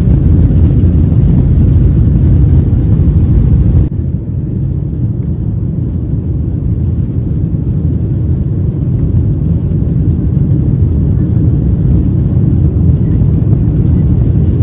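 Steady low rumble inside a jet airliner's cabin, the engines and air system heard from a passenger seat before takeoff. About four seconds in it turns quieter and duller, then holds steady.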